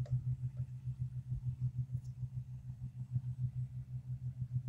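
Far-off diesel engines of two 1545 combine harvesters running steadily while harvesting rice, a low hum with a fast, even pulse.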